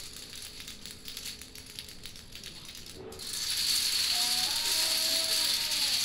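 Thousands of dominoes toppling in a chain reaction, a rapid rattling clatter of many small tiles falling. About halfway through, it jumps to a louder, denser clatter as a tall stacked structure collapses into a heap.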